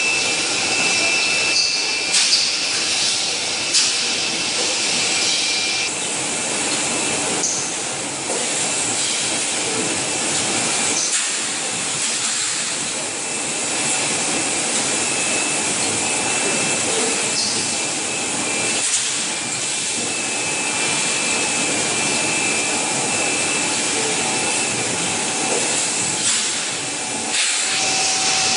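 Steady factory machinery noise from a bottle blow-molding and conveyor line: an even hiss, a thin high whine that comes and goes, and a few sharp clicks.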